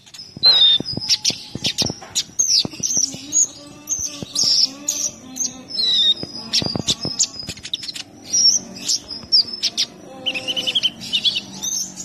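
Male van Hasselt's sunbird (kolibri ninja) singing: a rapid, varied run of high chirps, twitters and short trills, with sharp clicking notes mixed in.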